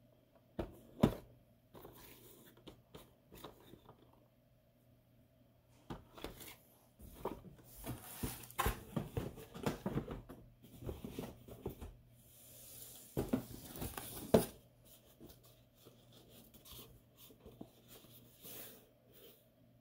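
Cardboard boxes being handled: flaps and sides scraping and rustling, with scattered knocks, the sharpest about a second in and near 14 seconds.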